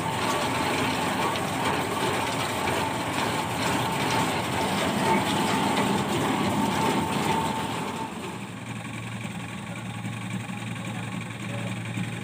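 Tractor-driven belt thresher running under load, a dense mechanical clatter with a steady whine over it. About eight seconds in the sound drops to a quieter, steady low drone of the tractor engine.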